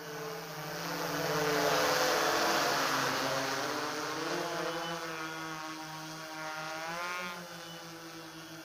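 Hexacopter with six U7 brushless motors and 18-inch propellers flying overhead: a steady propeller hum that grows louder about two seconds in and then eases off. Its tones waver and rise in pitch between about four and seven seconds as the drone manoeuvres.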